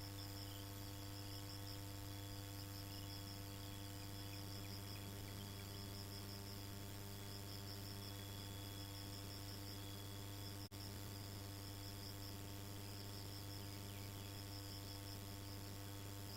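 Insects chirping in a steady, evenly pulsing high trill over a constant low hum. The sound drops out for an instant about ten and a half seconds in.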